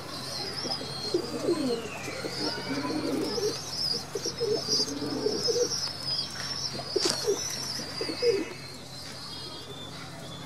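Domestic pigeons cooing, many low coos overlapping one after another, over a continuous high twittering chirp.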